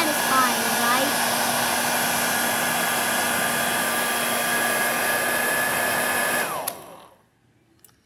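Hair dryer blowing steadily, a rushing of air with a motor hum and whine. About six and a half seconds in it is switched off: the whine falls in pitch as the motor winds down and the sound fades out.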